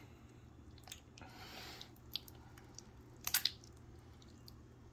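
Freshly activated glue slime being kneaded by hand: soft wet squishes with small sticky clicks and pops, the loudest a quick cluster of pops about three and a half seconds in.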